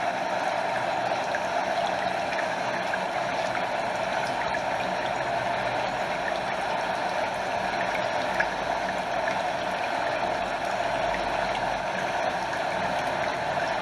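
A stream and small waterfall flowing steadily: an even, unbroken rush of water.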